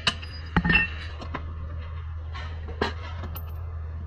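Metal clinks and knocks from work on a car's rear lower suspension control arm, a few separate strikes, the loudest a heavy knock just under a second in, over a steady low hum.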